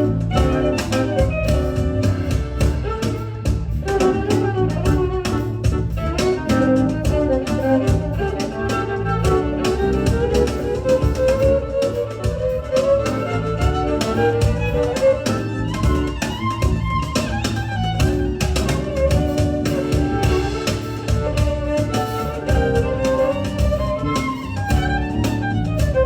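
Live instrumental music: a bowed violin melody gliding up and down over a steady, busy percussion beat.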